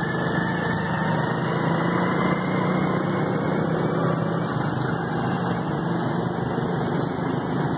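A small engine running steadily while under way, with wind and road noise from travel along the street.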